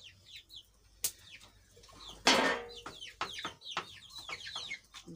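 Chickens clucking, with many short falling calls in quick succession and one louder call a little past two seconds in.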